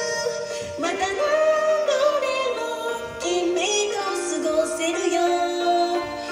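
Female idol singers performing a pop song live over a backing track, with a sustained, melodic vocal line.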